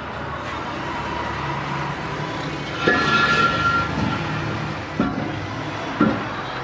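Steady background noise of a busy street, with a brief steady tone about three seconds in and a couple of sharp knocks near the end.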